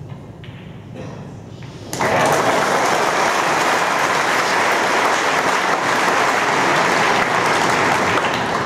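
Audience applauding, breaking out suddenly about two seconds in and continuing steadily, beginning to fade near the end.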